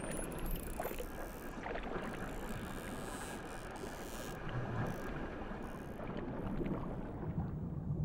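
Underwater water noise with a low rumble, overlaid by dolphins' thin clicks and a couple of high rising whistles in the first second.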